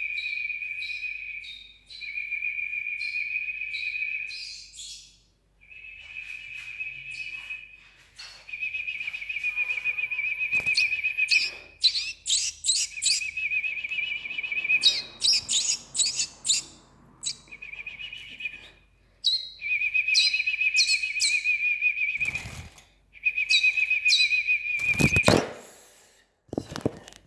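European goldfinch chicks begging: a high, warbling trill in runs of a couple of seconds, broken by short pauses, with sharp chirps over it. A couple of knocks and one loud thump come near the end.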